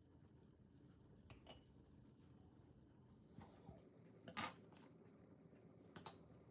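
A few light taps and clinks of kitchen utensils and dishes being handled, four in all, the last a sharp clink with a short ring, against near silence.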